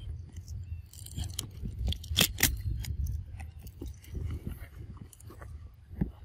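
Macaque biting into and chewing a crisp green fruit: a run of sharp, wet crunches, loudest about two seconds in.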